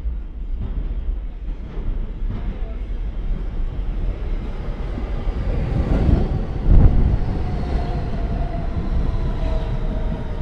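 New York City Q subway train in motion, a steady low rumble from the car and tracks, with a louder surge of rumbling about two-thirds of the way in. Over the last few seconds a faint whine slowly falls in pitch.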